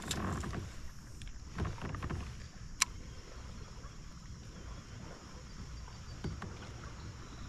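Knocks and low rumble from a fishing kayak on the water, with one sharp click a little under three seconds in.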